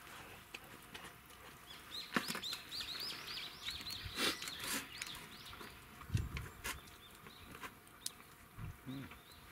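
A small songbird calling in a quick run of about ten repeated rising-and-falling chirps, a few per second, from about two seconds in to nearly five. A few light clicks of chopsticks against metal camp pots, and a couple of soft low thuds later on.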